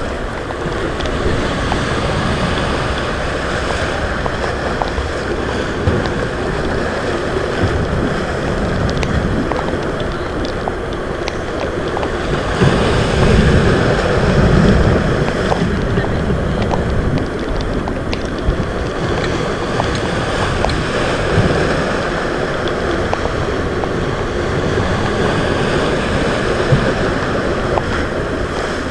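Rough sea waves surging and breaking, with wind buffeting the microphone. One heavier surge comes about halfway through.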